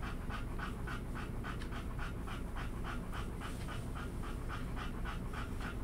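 A dog panting rapidly and steadily, about five breaths a second.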